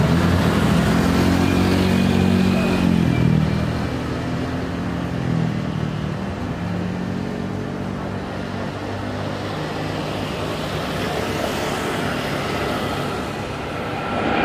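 Boeing 787-8 Rolls-Royce Trent 1000 turbofans running at takeoff thrust as the airliner rolls, lifts off and climbs out. A steady jet engine noise with a low hum that bends in pitch in the first few seconds, easing slightly in the middle and swelling again near the end.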